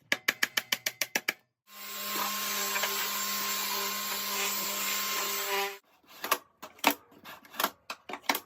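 A quick run of sharp clicks, then an electric power tool's motor running steadily for about four seconds with a low hum under a loud hiss, stopping suddenly. Irregular clicks and knocks of handling follow.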